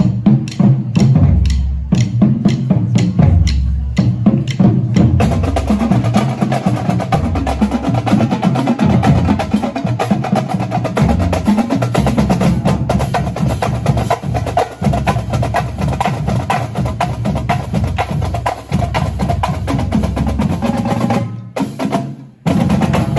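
Marching drum line of snare drums, bass drums and cymbals playing a cadence while marching. It starts with evenly spaced strokes over deep bass-drum hits, turns into a denser, busier passage about five seconds in, and breaks off briefly near the end.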